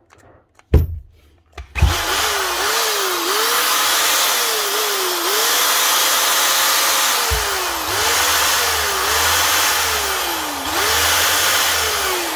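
Two knocks, then a Bosch GSB 21-2 RE impact drill's motor starts about two seconds in and runs, its speed sagging and picking up again several times over. The cable is being bent where it enters the handle, and the dropouts point to an intermittent break in the power lead there.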